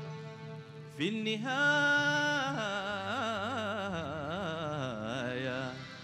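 A recorded Sudanese song playing. A sustained accompaniment note is held, then about a second in a louder melodic line slides up onto a long note and goes on in wavering, ornamented turns, dying down near the end.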